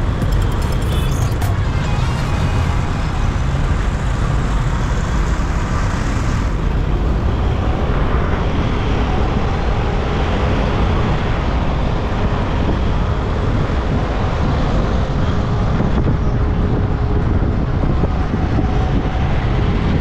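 Steady rumble of a car driving through city traffic: engine and tyre noise with surrounding road traffic, strongest in the low range.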